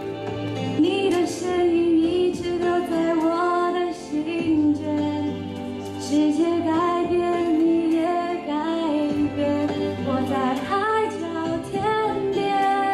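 A woman singing a slow Mandarin pop ballad into a microphone, over a backing track of sustained chords and bass.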